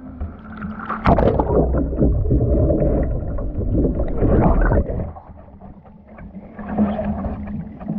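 Kayak capsizing and rolling back up in a reverse sweep roll: a splash about a second in, then water rushing and gurgling over the submerged microphone for about four seconds. A smaller splash of water follows as the kayak comes upright.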